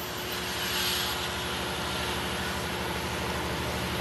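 Diesel locomotive of an approaching Amtrak Piedmont passenger train: a low, pulsing engine drone that grows slowly louder, with a brief hiss about a second in.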